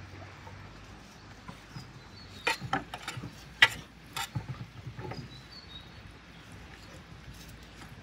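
A kitchen knife clicking and scraping against a metal baking tray as boiled chicken is pulled off the bone. A cluster of sharp clicks falls in the middle, the loudest about three and a half seconds in.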